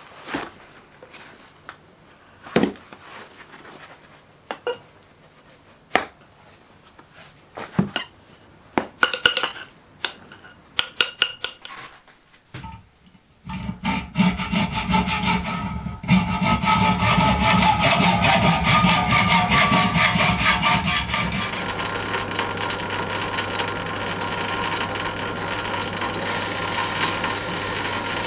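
Scattered knocks and taps as a wooden pattern box is worked in moulding sand. About halfway in, a hand hacksaw cutting through a small cast metal wheel held in a bench vise, the loudest part. In the last quarter, a metal lathe running steadily with a low hum as it turns the casting.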